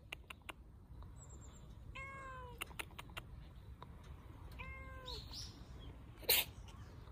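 A stray cat meowing twice, two short calls a couple of seconds apart. A brief sharp noise about six seconds in is the loudest sound, over a low steady rumble.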